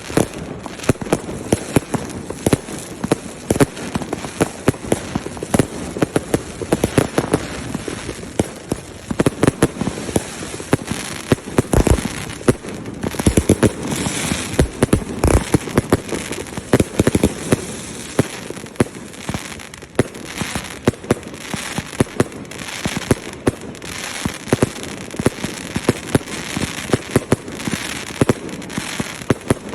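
Fireworks display with shells bursting in rapid succession: a dense, continuous barrage of sharp bangs, several a second, with crackle between them.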